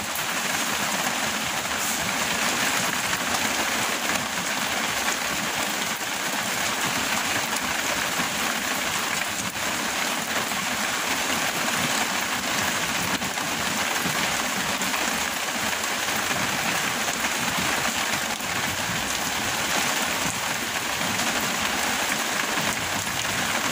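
Heavy rain falling steadily, a constant even hiss of rain on leaves and water.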